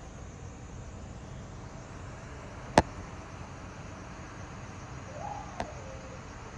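Steady low background noise broken by one sharp, loud click nearly three seconds in and a quieter click about three seconds later, with a faint brief wavering tone just before the second click.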